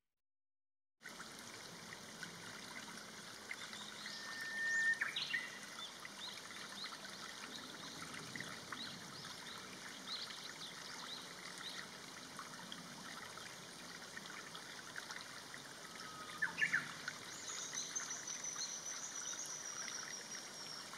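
A shallow stream trickling, with scattered small bird chirps over it and a few louder calls; a long, thin, high whistle sounds in the last few seconds. It starts after about a second of silence.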